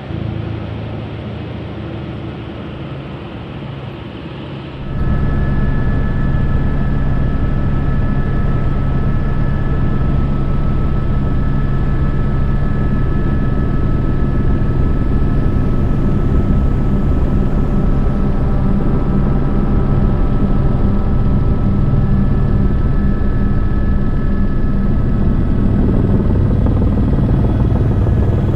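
Helicopter engine and rotor noise: a loud, steady drone that cuts in abruptly about five seconds in and holds unchanged.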